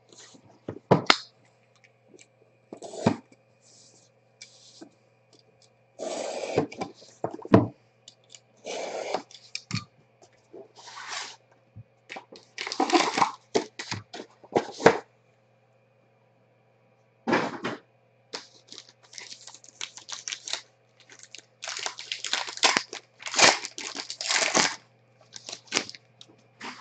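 Trading-card box and foil pack wrappers being handled and torn open: irregular bursts of crinkling and tearing, with a few sharp knocks of packs or the box on the table.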